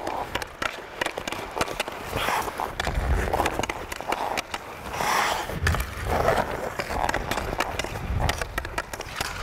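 Ice skate blades carving and scraping across the ice in repeated hissing swells, with many quick clicks of a hockey stick blade tapping the puck as it is stickhandled.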